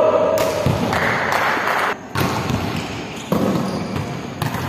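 A volleyball being struck and bouncing on an indoor court: several sharp hits over the noise of a busy game, with a player's short call at the start.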